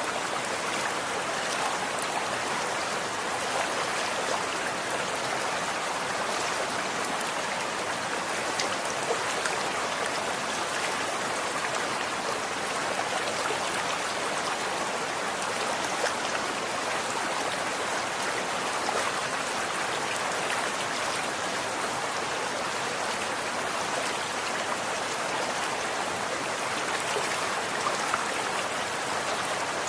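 Running water: a stream flowing steadily over stones, a constant rushing with many small splashes and droplets.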